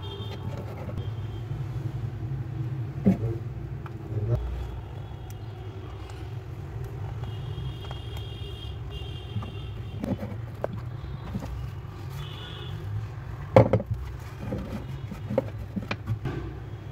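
Scattered small clicks and knocks of hands handling thin speaker wires and pressing them into the spring-clip speaker terminals of an amplifier board. The loudest knock comes about three-quarters of the way through. A steady low rumble runs underneath.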